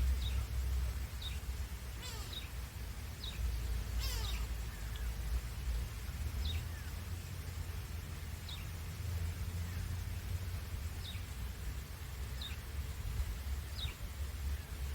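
A bird giving short, high calls that slide down in pitch, repeated every one to two seconds, with one longer falling call about four seconds in, over a low rumble.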